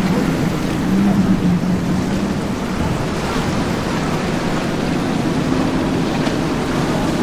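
A powerboat's outboard engines drone steadily at speed over the splash of the hull through the waves. After about three seconds the engine tone drops away, leaving a steady noise of waves and wind on the microphone.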